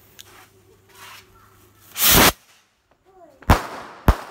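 Hand-held skyrocket firework launching with a short, loud whoosh about two seconds in. Two sharp bangs follow about half a second apart near the end as it bursts in the air.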